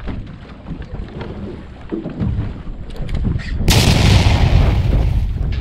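Wind buffeting the microphone aboard a small fishing boat, with low thumps as the hull meets the waves. About two-thirds through it gives way abruptly to a louder, steady rush of wind and water.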